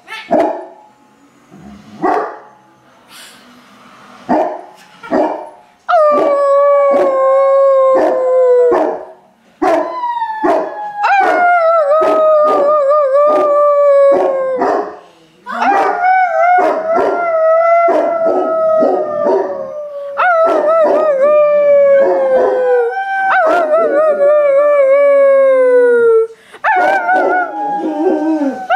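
Dogs barking and howling: a few separate sharp barks, then from about six seconds in a run of long howls, each sliding slowly down in pitch, with quick barks cutting in between.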